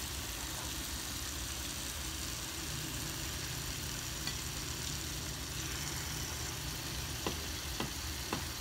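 Chicken karahi frying in a pan, a steady sizzle. A low hum runs under it for a few seconds in the middle, and three light clicks come near the end.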